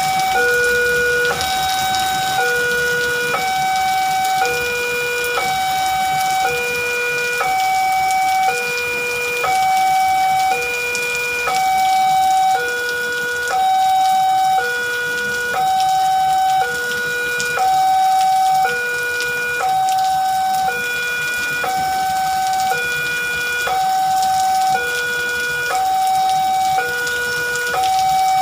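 Railway level-crossing warning alarm sounding a steady two-tone signal, a low note and a higher note alternating, each held just under a second, with the barrier down for an approaching train. Heavy rain hisses underneath.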